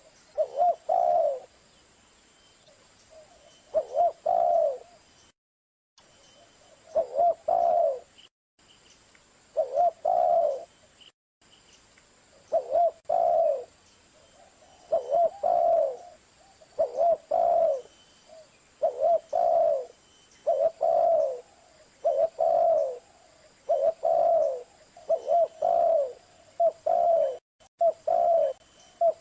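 Spotted dove cooing: short phrases of a few low, pitched coos, repeated every few seconds and coming closer together toward the end.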